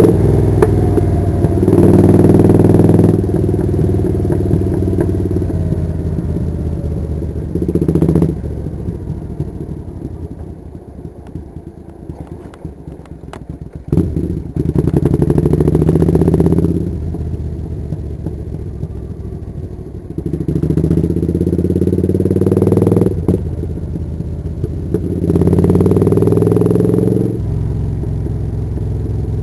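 Suzuki Intruder 800's V-twin engine heard from the rider's seat while under way, getting louder in several pulls of two or three seconds as the throttle opens and dropping back to a quieter run between them.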